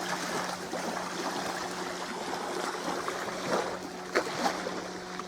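Water lapping and trickling at the shore, a steady noise with a faint low hum under it and a few small ticks near the end.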